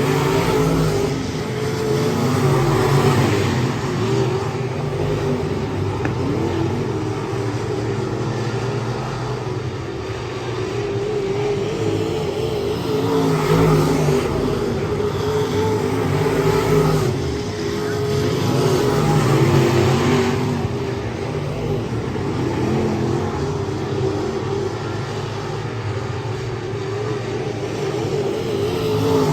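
Race car engines running at speed, their note swelling and easing every few seconds as the throttle opens and closes.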